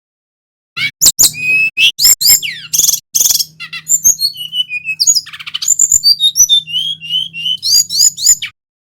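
Male sikatan rimba dada coklat (brown-chested jungle flycatcher) singing a fast, varied run of whistled notes that slide up and down. It starts about a second in and stops shortly before the end, over a faint low hum.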